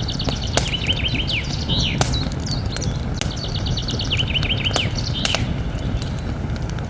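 Wood fire crackling with scattered sharp pops over a low steady rumble. A songbird sings two phrases over it, each a rapid run of high notes ending in a few lower slurred notes.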